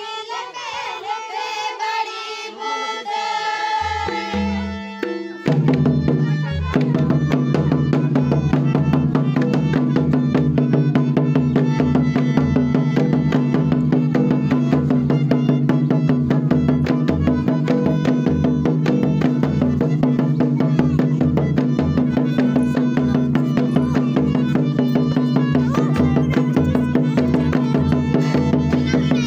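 Traditional folk dance music: a voice sings for the first few seconds, then drums come in about four seconds in and settle into a fast, steady beat under sustained melody notes.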